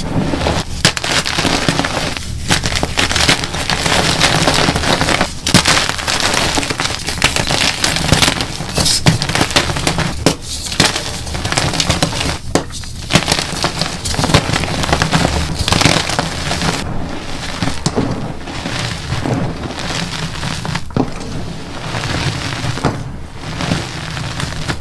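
Dyed gym chalk blocks crushed and crumbled by hand into loose powder: a dense, continuous crunching full of sharp little cracks, with brief lulls between handfuls.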